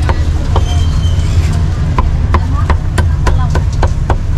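Steel cleaver chopping cooked pork on a thick wooden chopping block. Two chops come near the start, then after a pause a quicker run of sharp chops, about three a second, from about two seconds in. A steady low rumble runs underneath.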